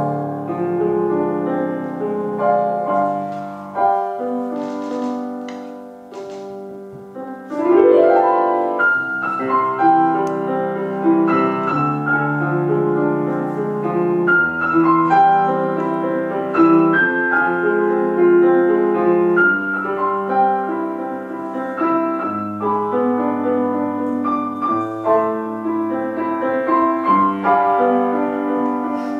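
Grand piano played solo, a dense flow of notes. A little past the middle of the first third the playing drops quieter, then a quick rising run about eight seconds in leads into louder playing.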